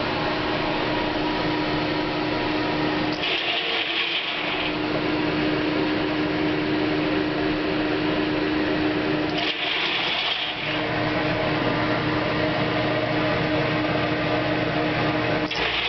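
Corn grain dryer running: a steady mechanical hum with a strong held tone, broken about every six seconds by a hiss lasting just over a second, three times in all.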